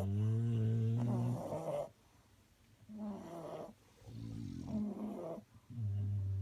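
English bulldog snoring: a run of loud, pitched snores, each a second or two long, one every couple of seconds with short quiet gaps. The snoring is typical of the breed's short-muzzled airway.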